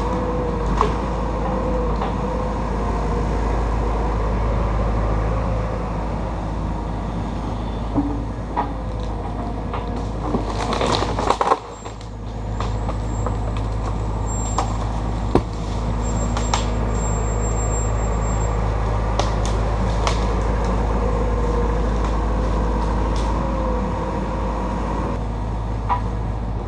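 Takeuchi TB290 excavator's diesel engine running steadily while it works, with scattered clicks and knocks over it. The engine dips briefly about eleven seconds in, then picks back up.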